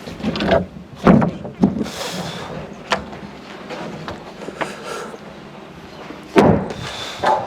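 Scattered heavy thuds and knocks of timber framing work, with a sharp click about three seconds in and a brief hiss near two seconds.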